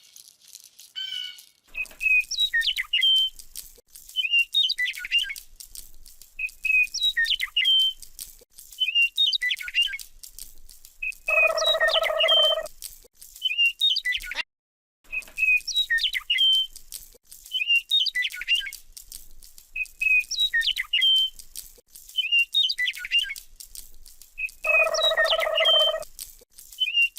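Electronic bird-chirp sounds repeat in a regular, looped pattern. Twice they are joined by a held, even electronic tone lasting about a second.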